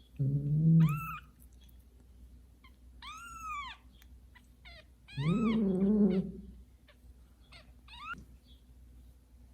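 A newborn kitten mewing in short, high, thin cries, about four of them, while an adult cat gives two louder, low-pitched drawn-out calls, one near the start and one about five seconds in.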